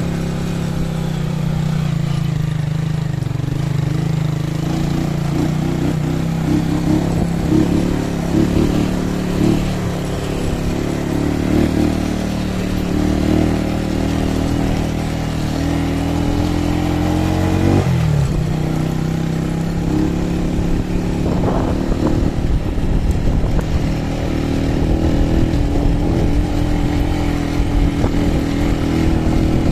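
Small motorcycle engine running under way on a rough dirt road, its note rising and falling with the throttle and dipping sharply once about halfway through.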